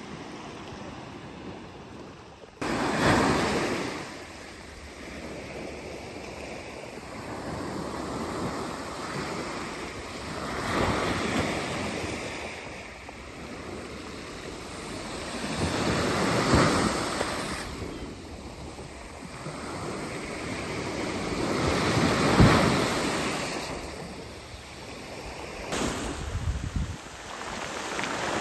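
Sea waves washing onto the shore, surging loudly every few seconds, with wind on the microphone.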